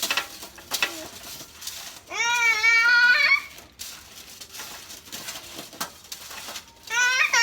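A toddler whining in a high, wavering cry lasting a little over a second, with a second cry starting near the end. A few light clinks of a utensil against the pan come before it.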